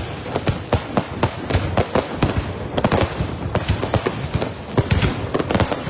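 Aerial fireworks display: a rapid, irregular barrage of shell bursts, several bangs a second, over continuous crackling.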